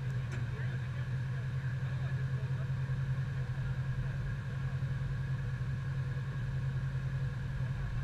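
Side-by-side UTV engine idling steadily while the vehicle stands still.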